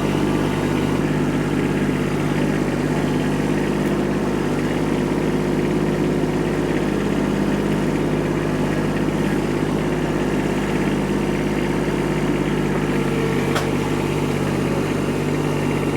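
Kubota tractor's diesel engine running steadily at a constant speed, with a single sharp click near the end.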